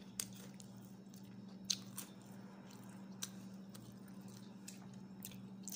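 Close-up chewing and crunching of raw salad vegetables, cucumber and greens, as a series of short sharp crunches, the sharpest a little under two seconds in, over a steady low hum.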